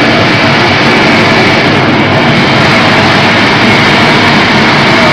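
Rice milling machine running steadily and loud while grain is fed into its hopper: a dense whirring rush with a steady high whine on top.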